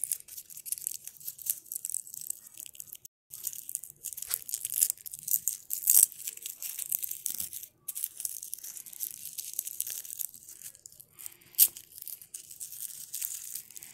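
Clear plastic wrapping crinkling and tearing as it is pulled apart by hand to free a small toy accessory, in quick irregular crackles with two louder sharp rips, one about halfway through and one a couple of seconds before the end.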